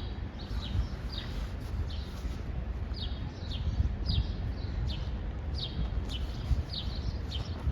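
A small songbird calling, a short high note sliding downward, repeated about twice a second, over a steady low rumble.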